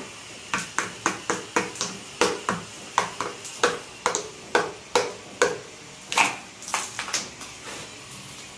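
Small hammer tapping repeatedly at the plastic cover around a concealed shower diverter set in a tiled wall: sharp, ringing knocks, two or three a second in an uneven rhythm, which stop about a second before the end.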